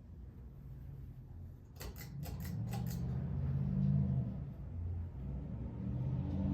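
A quick run of about six clicks about two seconds in as the speed is switched, then the K55 motor hum of an Emerson Premium ceiling fan grows louder as the fan speeds up to medium.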